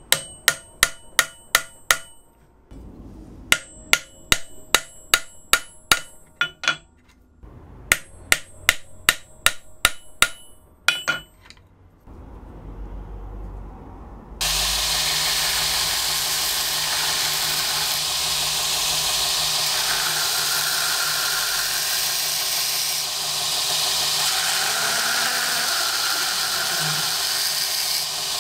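Hammer striking a steel eyelet-setting tool to flare eyelets through a Kydex sheath: three runs of eight to ten sharp taps, about four a second. About halfway through, a belt grinder starts and runs steadily as the sheath's edge is sanded.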